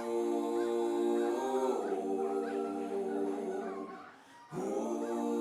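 Outro music of sustained, held chords that change once early on, break off briefly about four seconds in and then come back.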